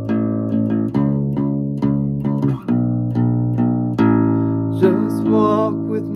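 Acoustic bass guitar plucked in a steady pattern of single notes, about two a second, each ringing on into the next. Near the end a short sung note with vibrato joins in.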